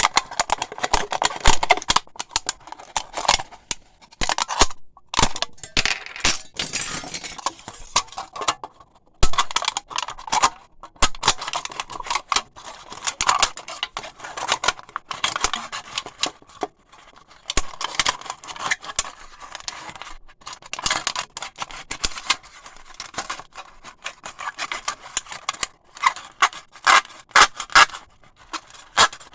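Aluminium pop cans being cut with a razor blade: irregular scraping, slicing strokes and sharp clicks, broken by a couple of short pauses.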